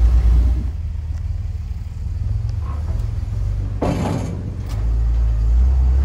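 Four-wheel drive's engine running with a steady low rumble as it drives slowly off a vehicle ferry ramp. A short noisy burst comes a little under four seconds in.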